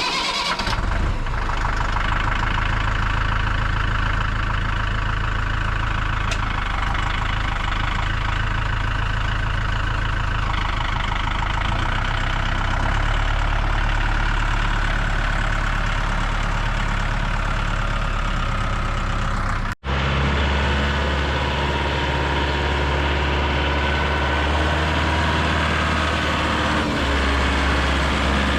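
Tractor engine running steadily. It cuts out for an instant about twenty seconds in, and the low engine note is stronger afterwards.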